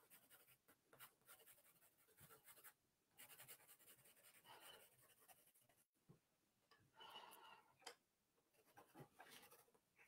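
Faint, intermittent scratching of a graphite pencil sketching on a paper sketchbook page, in short irregular strokes.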